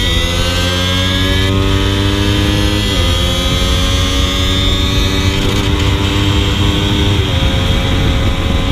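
Suzuki Raider 150 Carb's single-cylinder four-stroke engine under hard acceleration, its pitch climbing steadily in each gear and dropping sharply at two upshifts, about 3 s in and about 7 s in. Heavy wind rumble on the microphone runs underneath.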